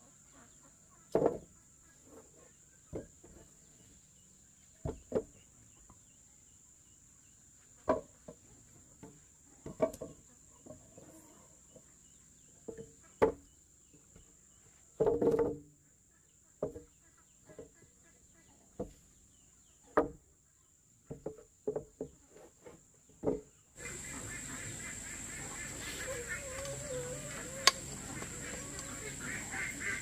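Chickens clucking in short, separate calls every second or two. Near the end the background suddenly turns louder and steady.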